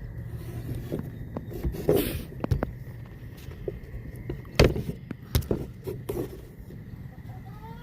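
Irregular knocks and clatters of handling in a chicken coop, the loudest sharp knock about halfway through, followed by a hen's short call near the end.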